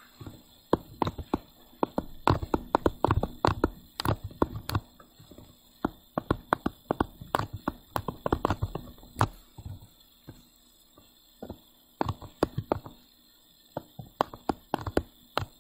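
A stylus tapping and clicking on a tablet screen as it writes: irregular runs of sharp little taps with brief pauses between them.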